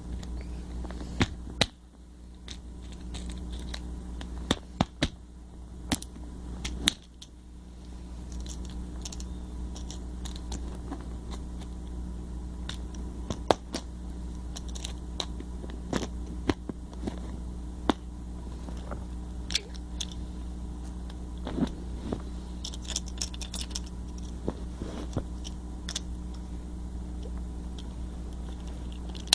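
Hexbug remote controller's plastic casing being pried and cracked open by hand: scattered clicks, snaps and crackles, some in quick clusters, over a steady low hum.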